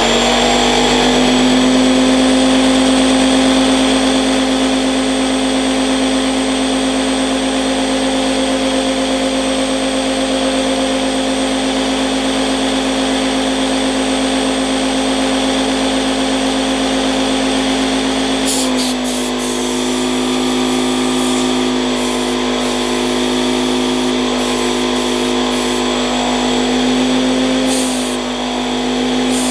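Lidl Parkside PKZ 80 C5 compact piston air compressor switched on and running continuously with a loud, steady hum. About two-thirds of the way in, its note drops slightly and short bursts of hiss come and go over it.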